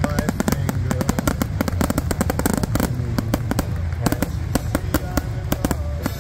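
Aerial fireworks going off in a rapid, continuous string of bangs and crackles, many reports a second, over a low rumble.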